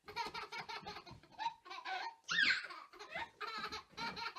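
Young child laughing in repeated short bursts, with a high squeal about two and a half seconds in.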